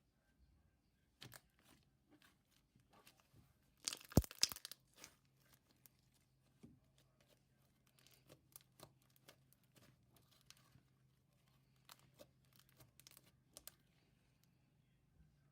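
Slime being squished and stretched by hand: scattered small sticky clicks and pops, with a louder burst of noise about four seconds in.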